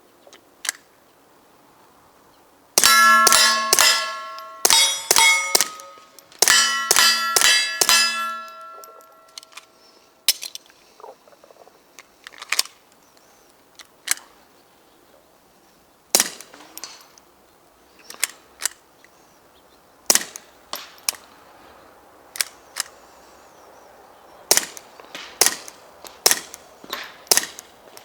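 Suppressed .22 GSG 1911 pistol firing quiet, sharp shots: rapid strings of shots with metallic ringing from hits on steel, then slower, spaced single shots through the rest.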